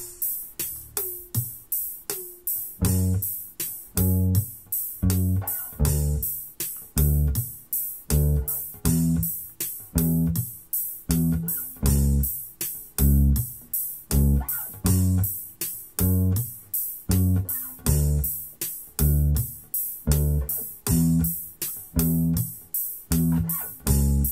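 Electric bass playing slow, short single notes, each muted quickly, about one a second on the tom hits of a four-beat drum loop, over the loop's steady ticking hi-hat. The bass comes in about three seconds in.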